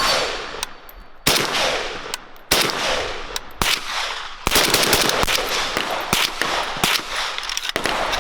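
Gunshots at an outdoor shooting range, a string of sharp reports coming roughly once a second at uneven intervals, some louder and some fainter. Each shot trails off in a long echoing tail.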